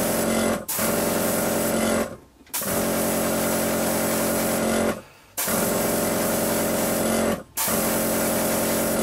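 Badger 200 airbrush spraying paint, a steady hiss of air with the hum of its compressor. It runs in spells of one to two and a half seconds, cut by four short pauses as the trigger is let off.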